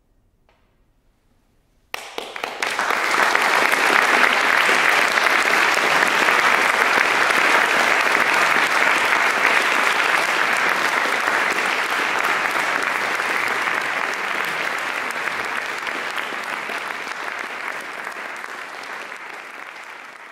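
Audience applauding: after a couple of seconds of near silence, the clapping breaks out suddenly, holds steady, and slowly fades toward the end. It marks the close of the performance.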